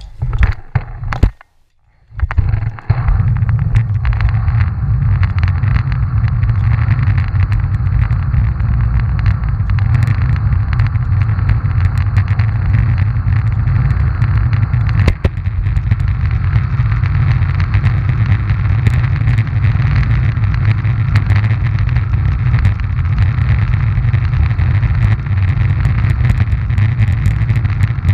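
Roller-ski wheels rolling over coarse asphalt, picked up through a camera mounted on the ski: a loud, steady rumble with scattered small clicks. It starts after a few short knocks about two seconds in.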